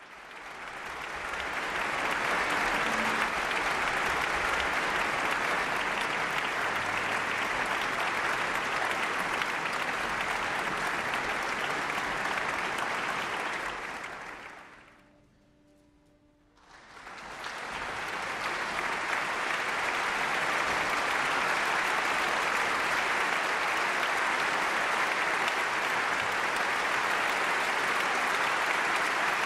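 Large concert audience applauding in a dense, steady patter. The applause fades away about halfway through and swells back in a couple of seconds later.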